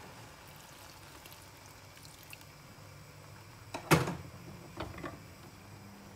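Water poured from a glass into a frying pan of chopped pork offal, a faint pouring hiss. About four seconds in there is one sharp knock, then two lighter clicks.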